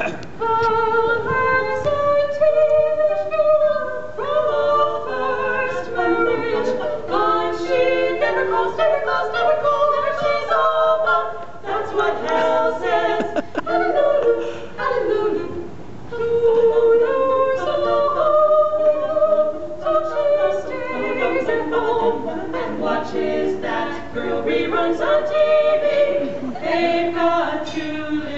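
Women's vocal quartet singing a cappella, several voices together in harmony with no instruments.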